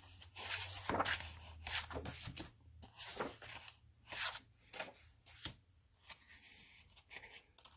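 Sheets of 6x6 patterned paper rustling and sliding as they are flipped over and laid on a stack, in a series of short, irregular rustles.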